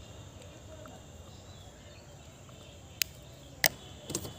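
Pens being handled over the paper: two sharp clicks about two-thirds of a second apart, then a softer rattle of clicks, as the colouring pencil is set down and a marker pen is picked up, over faint background noise.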